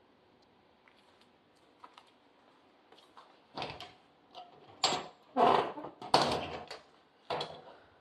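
A metal storage cabinet being unlocked and its door pulled open: a run of clacks and short rattles from the key, latch and door, starting about three and a half seconds in and loudest around six seconds in.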